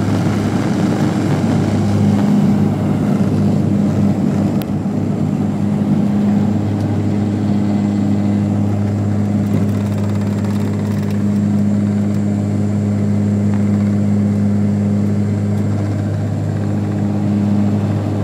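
Bombardier Dash 8 Q400's turboprops and six-bladed propellers at takeoff power, heard inside the cabin: a loud, steady low propeller drone over engine rumble. It is rougher for the first few seconds while the aircraft is still on the runway, then smooths out in the climb.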